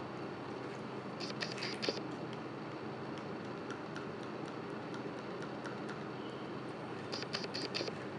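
A spatula stirring thick screen-printing emulsion in a plastic tub as sensitizer is mixed in. There are two short runs of light clicking and scraping, about a second in and again near the end, over a steady background hiss.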